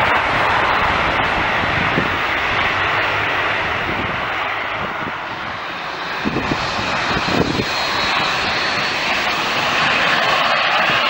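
Jet airliner engines, a loud steady rush that eases a little midway and swells again, with a faint high whine joining in the second half.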